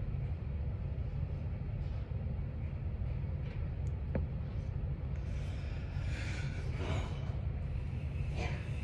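Steady low background rumble of room noise, with a faint tick about four seconds in and a few soft, brief rustles in the second half as crepe hair is pressed onto the chin by hand.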